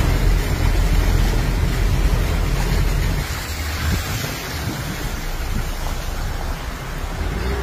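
Wind buffeting a phone's microphone outdoors: a heavy low rumble for about three seconds that then eases, over a steady rushing hiss.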